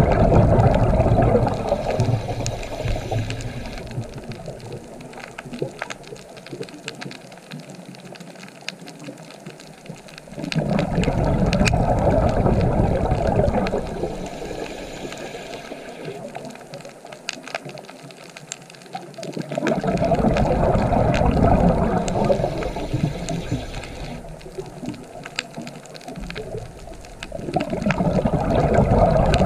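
Underwater: a scuba diver's exhaled air bubbles rumbling and gurgling in swells of three to four seconds, about every eight to ten seconds, one breath after another. Faint scattered clicks go on in between.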